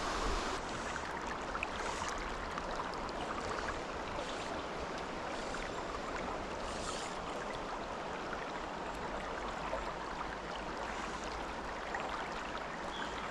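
Trout stream running steadily over riffles, an even rushing and gurgling of flowing water.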